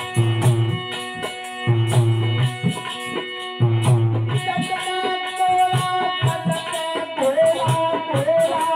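Instrumental folk accompaniment of harmonium and dholak drum, with a jingling rattle over it. About halfway through, a wavering melody line comes in over the held chords.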